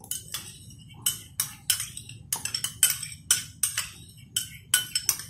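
Metal kitchen utensil knocking and clinking against an aluminium pot, about three quick sharp knocks a second.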